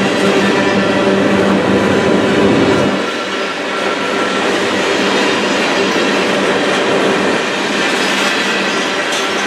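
CN freight train rolling past: a steady rumble and rattle of railcars on the track, with a low steady tone that drops away about three seconds in.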